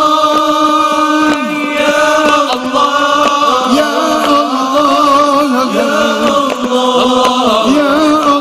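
A man chanting Arabic sholawat, devotional verses praising the Prophet, through a microphone and PA. He holds long notes and ornaments them with melismatic turns.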